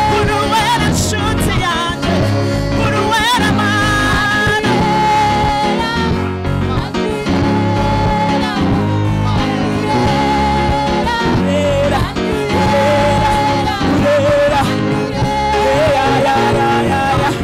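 Live gospel choir singing, women's voices through microphones leading, over a band accompaniment with a steady beat.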